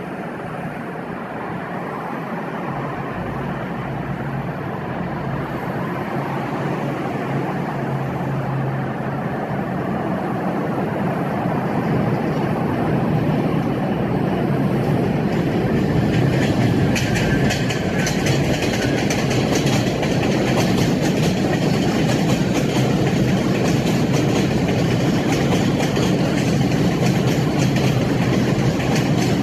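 R62A New York City subway train running on its tracks, growing steadily louder. Over the second half, rattling clicks of wheels on rail joints come in.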